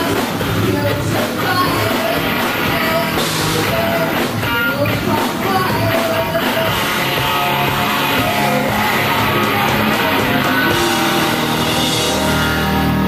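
Rock band playing live and loud, with electric guitar, bass and drums under a woman singing.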